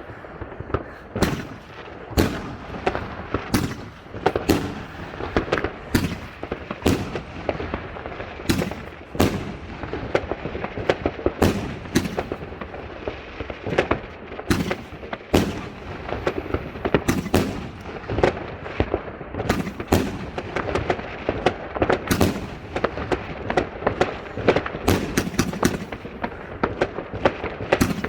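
Fireworks display: a dense, irregular barrage of sharp bangs and cracks, one to three a second, over a continuous rumble of distant bursts.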